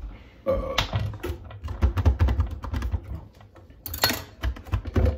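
Clicking and clattering of knives and utensils being handled on a kitchen countertop, with irregular low thumps and knocks close by.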